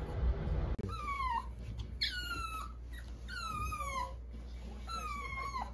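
Pomeranian whining four times in high, thin calls, each sliding down in pitch over about half a second.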